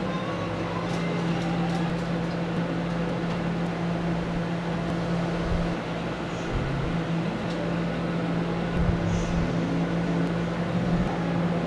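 Steady mechanical hum from a running motor or fan, with a constant low drone and a few faint light clicks.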